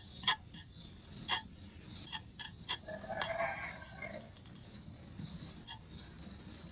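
Sharp, separate clicks and taps of hard pieces of charcoal being handled, about half a dozen, with a short faint pitched sound about three seconds in.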